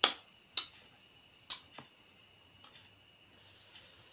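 Three sharp crunches of a mouth biting and chewing crisp food close to the microphone, in the first second and a half, over a steady high chirping of crickets. One strand of the chirping stops partway through.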